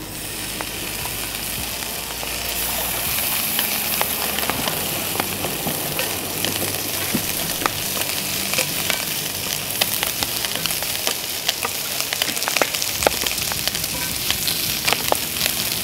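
Fatty bacon cubes sizzling in a hot cast iron skillet, at about 460–470 °F, as their fat starts to render: a steady hiss dotted with frequent sharp pops and crackles. It grows louder over the first few seconds as more pieces go in, then holds.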